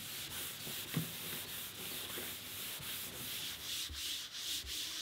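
Bare hand rubbing oil into a stacked Baltic birch plywood bowl, a dry swishing of palm over the wood in repeated strokes, about three or four a second.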